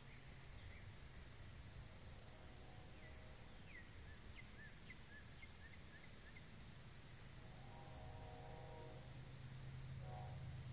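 Insects chirping in a steady, even rhythm, about three to four short high chirps a second, with a few brief bird chirps around the middle.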